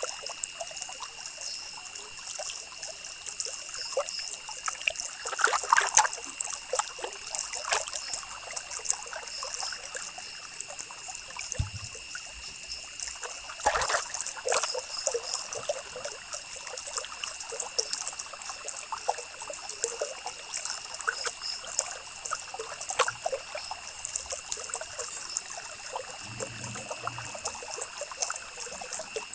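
Ballpoint pen scratching on paper in quick, short, irregular strokes, heard close up, with a steady faint high whine underneath.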